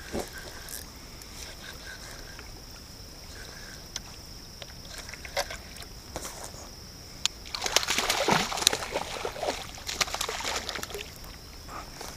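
Small hooked fish splashing and thrashing at the water's surface as it is reeled up beside a kayak, in a dense run of splashes that starts about halfway through and dies down near the end.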